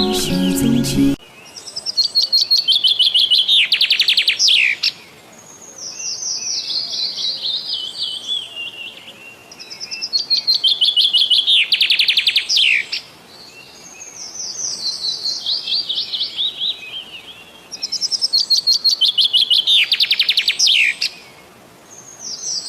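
Songbird singing the same phrase over and over, about every four seconds: a quick run of high notes stepping down in pitch that ends in a fast rattling trill, with every other phrase softer. Music cuts off about a second in.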